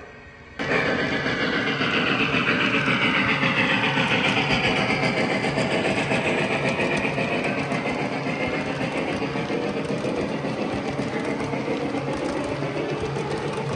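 Three-rail model train running past: a steady whirring rumble of motor and wheels on the track, with a fast even clatter. It starts abruptly just after the start and eases off slightly in the second half.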